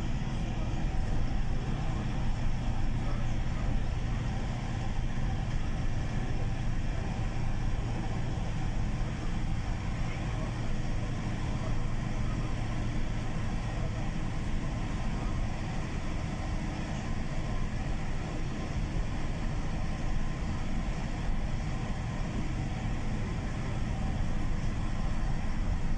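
Bus engine and road noise heard from inside the cabin while driving: a steady low rumble that stays even throughout.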